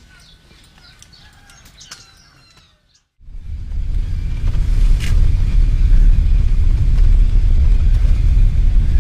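A few birds chirping and calling for about three seconds, then a sudden cut to a loud, steady low rumble that fills the rest.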